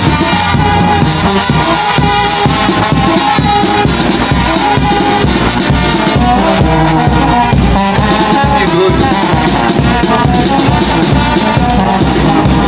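Loud, upbeat band music with brass over a steady beat.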